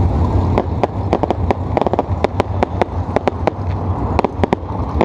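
An aerial fireworks display: a rapid, irregular string of sharp pops and bangs, several a second, over a steady low rumble.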